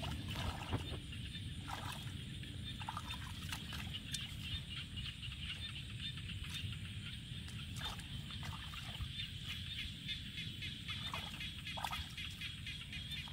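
Hands sloshing and splashing in shallow muddy water a handful of times, over a low rumble and a constant high chattering of animal calls.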